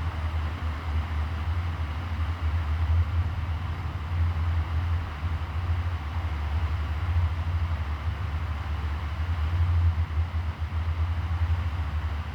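Classic electric fan running steadily: a low motor hum under an even rush of moving air.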